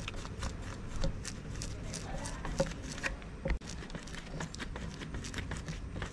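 Irregular light clicks and taps, as of hand tools and small metal parts being handled during brush cutter clutch work, over a steady low hum.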